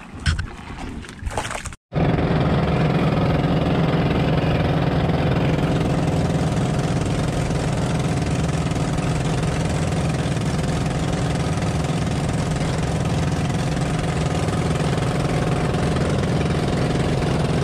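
Outrigger fishing boat's engine running steadily while the boat is under way, a constant drone that begins about two seconds in after a sudden cut.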